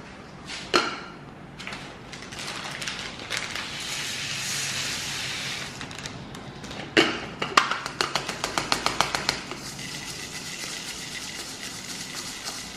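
Sugar sprinkles being poured from a packet through a plastic funnel into a plastic bottle: a soft hiss of running grains, then a knock and a quick run of light clicks, about five a second, lasting a couple of seconds.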